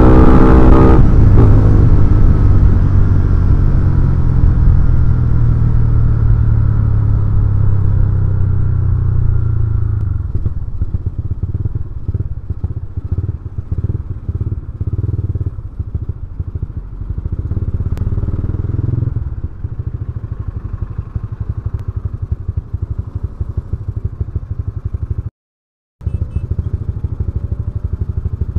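Yamaha Scorpio's single-cylinder four-stroke engine heard from the saddle. Its revs fall away in the first second, it runs steady for a while, then after about ten seconds it settles into lower, uneven running at low speed. The sound cuts out briefly near the end.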